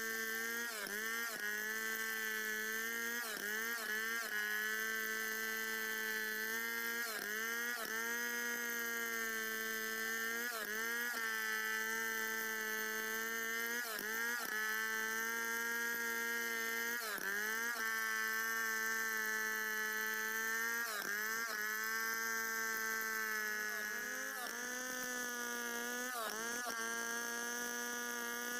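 Two-stroke chainsaw running at full throttle while ripping a santol log lengthwise into lumber, freehand. It holds a high, steady pitch that briefly sags and picks up again every few seconds as the chain loads in the cut.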